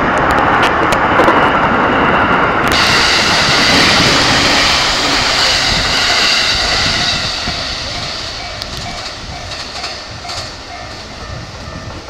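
JR E231 series electric multiple unit passing close by, its wheels clattering over the rails. The noise fades away after about seven seconds as the last cars go by.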